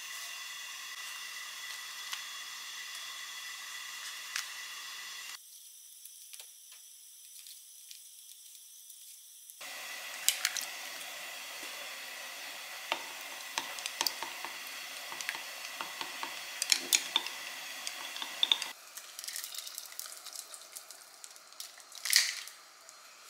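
Home cooking sounds in separate takes: a steady hiss from the pot on the burner, then many quick clicks and taps of an egg being beaten in a glass measuring cup, then a pot of wonton dumplings simmering, with one brief louder noise near the end.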